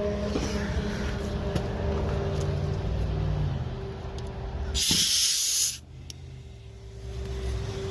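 A short, loud hiss of escaping compressed air, about a second long and about five seconds in, over a steady low rumble and hum.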